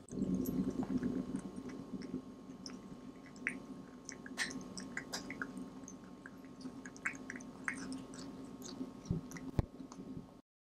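A Minuet kitten (Munchkin × Persian) chewing food at its bowl, close up: many small, irregular clicks of chewing over a steady low hum. The sound cuts off suddenly about ten seconds in.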